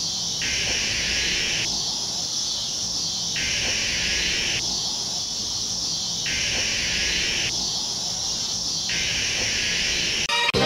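Outdoor insect chorus: a steady high hiss, with a second, lower buzzing layer that comes on for about a second and a half, then drops out, repeating about every three seconds. Music starts right at the end.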